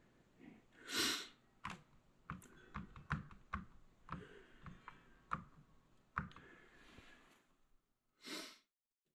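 Buttons on a wall thermostat being pressed: a string of faint, sharp plastic clicks, with two short rushing noises, about a second in and near the end.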